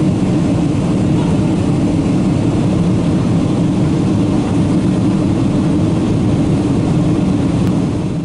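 Cabin noise of a Boeing 777-200 in cruise, heard beside the wing: the jet engines and the rushing airflow make a loud, steady, deep hum with no change in pitch.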